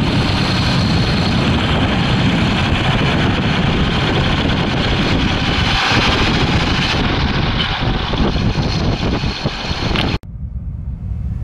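1929 Oakland American Six's six-cylinder engine running as the car drives, with a steady rush of wind and road noise over the microphone. About ten seconds in it cuts off suddenly and a deep low rumble takes over.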